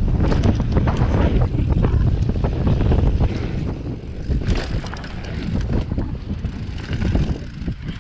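Downhill mountain bike running fast over a dirt and gravel trail: heavy wind rush on the microphone, tyre noise and a constant run of rattles and knocks from the bike over the rough ground, easing a little in the second half.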